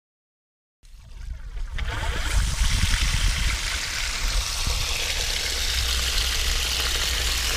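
Water pouring steadily from the end of a sump pump discharge hose onto the ground. It starts about a second in and builds quickly to a steady flow.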